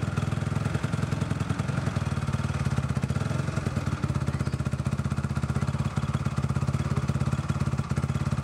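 Motocross bike's single-cylinder engine idling with a steady, rapid pulse.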